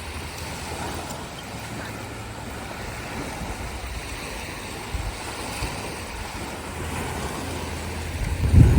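Sea waves washing in, with wind buffeting the microphone; a strong gust hits near the end.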